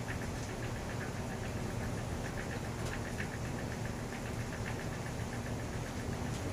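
Maple syrup boiling in a finishing pan near the end of its cook, with the stove running underneath: a steady low rumble with light, irregular popping of bubbles.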